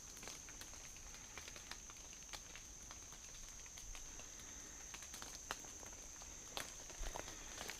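Insects keep up a steady high-pitched drone in the woods, with faint scattered ticks and rustles; a few clicks are a little louder near the end.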